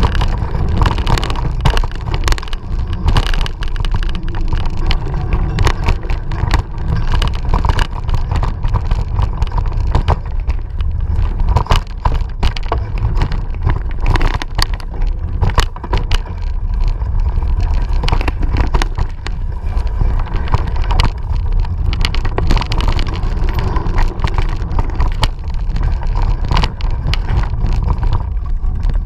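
Mountain bike ridden over dirt singletrack, heard from a bike-mounted or rider-worn camera: a constant heavy rumble of wind on the microphone, with dense irregular rattling and clicking from the bike and tyres over the rough trail.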